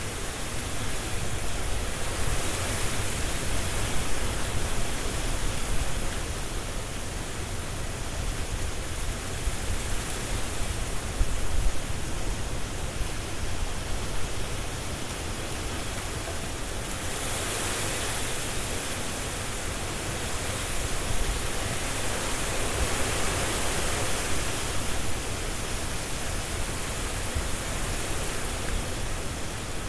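Strong wind gusting through trees, leaves rustling under a low rumble of wind. It swells twice, a few seconds in and again just past the middle.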